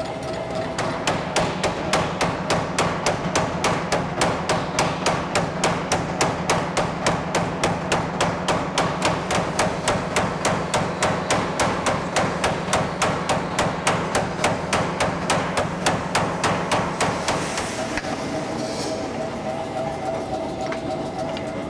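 Power hammer striking hot steel in drift dies, a steady run of blows at about four a second that stops a few seconds before the end, over the hum of the running hammer.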